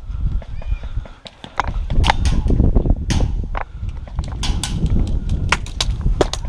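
Airsoft guns firing: a dozen or so sharp snaps at irregular intervals, over a low rumble of movement.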